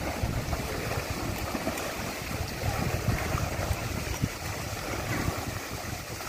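Steady splashing of pool water, from wall spouts pouring into the pool and a swimmer's freestyle strokes, with wind rumbling on the microphone.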